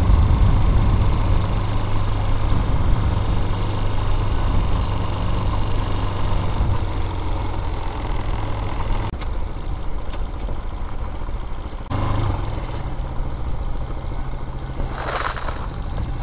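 Vitacci Bashan BSR Raven 250 motorcycle engine running steadily at low revs. Its note drops about nine seconds in and picks up again about three seconds later.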